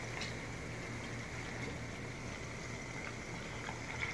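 Sliced onions deep-frying in hot oil in a steel pan: a steady, even sizzle and bubbling.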